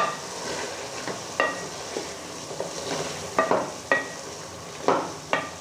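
Vegetables sizzling in a metal pan as raw potato chunks are stirred in. Over the steady sizzle, the spoon knocks and scrapes against the pan about seven times, some strokes leaving a short metallic ring.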